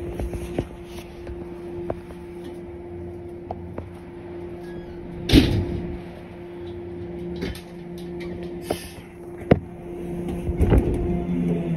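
Steady low electrical hum of a stationary 103 series electric train waiting at the platform, heard from the cab. A loud knock comes about five seconds in and a sharp click about four seconds later.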